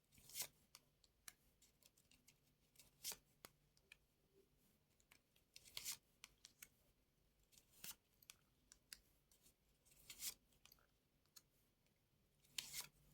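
Faint swishes and light taps of playing cards being drawn from the deck and laid down, about half a dozen short card sounds spread over quiet room tone.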